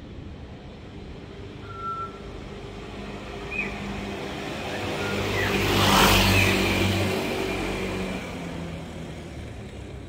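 A motorcycle passes close by, its engine growing louder to a peak about six seconds in and then fading away. Before it, a few short whistled calls from a hidden parrot.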